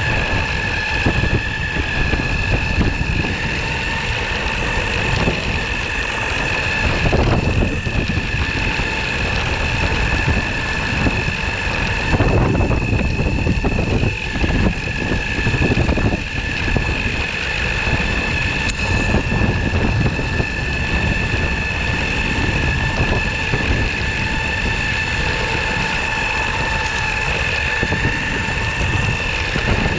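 Onsra Black Carve belt-drive electric skateboard under way: the belt-drive motors whine at a steady pitch over a continuous rumble of the rubber wheels rolling on pavement.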